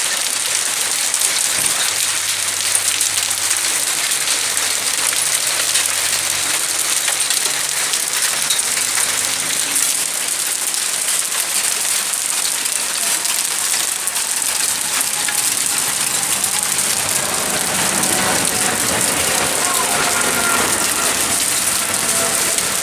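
Hail and rain pelting down on hard surfaces: a steady, dense hiss of countless tiny hits. Faint voices come in near the end.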